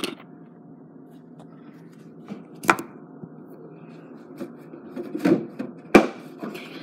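Handling knocks of a phone being set up on a stone countertop: a few sharp taps and rubs, the loudest one near the end, over a low steady hum.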